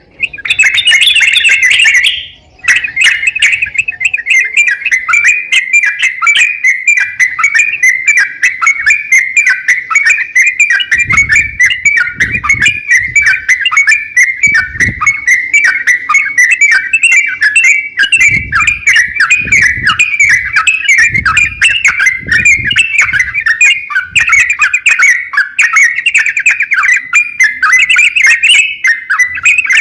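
A crokcokan songbird singing in a long, unbroken stream of rapid chirping and twittering notes, with one short break about two and a half seconds in. Soft low bumps sound under the song several times in the middle.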